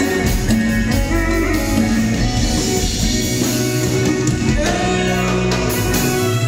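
Live band music played loud through a PA: electric guitar and keyboards over bass and drums.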